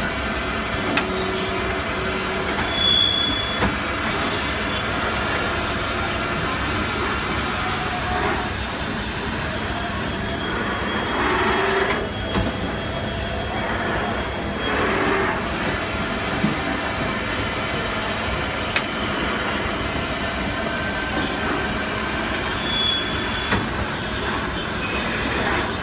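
CNC lathes machining aluminium parts: a steady din of machinery with several whining tones, brief high metallic squeals, and a few sharp clicks.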